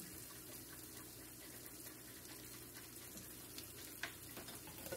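Sliced onions frying quietly in a skillet, a faint steady sizzle with small ticks, and a single light tap about four seconds in.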